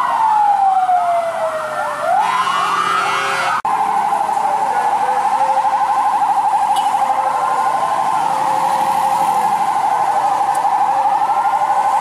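Several emergency vehicle sirens wailing, their pitch sliding slowly up and down and overlapping. After an abrupt cut about three and a half seconds in, a fast warbling siren holds a steady pitch, with fainter wails beneath it.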